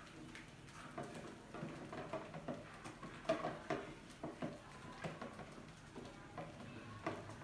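Rats scrambling over and around a clear plastic bottle trap: irregular taps, clicks and scratches of claws on the plastic, starting about a second in and busiest in the middle.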